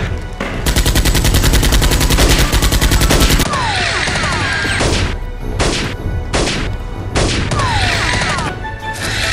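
Gunfire sound effects: a rapid machine-gun burst of about three seconds, then a handful of single shots with falling whistles like ricochets, over background music.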